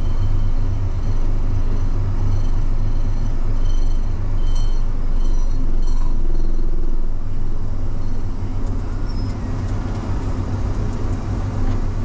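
Farm tractor's diesel engine running steadily, a deep even drone heard from the operator's seat.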